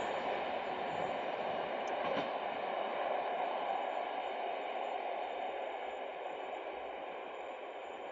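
Diesel train running away into a tunnel, its engine and rail noise a steady rumble that fades slowly.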